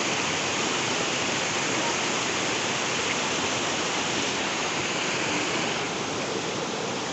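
Steady rushing noise, easing slightly about six seconds in.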